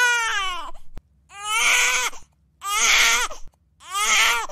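A cartoon boy's high-pitched crying. One long wail trails off about a second in, then three shorter wails follow about a second apart.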